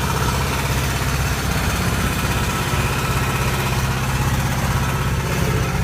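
An engine running steadily, a low even hum that holds the same pitch throughout.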